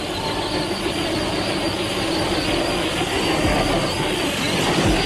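Redcat Ground Pounder 1/10 electric RC monster truck running on loose gravel and dirt: a steady whine from its 4400kV brushless motor and transmission over tyre noise, getting a little louder near the end.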